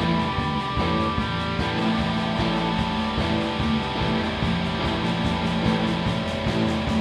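Live indie rock band playing an instrumental passage: guitars over a steady beat.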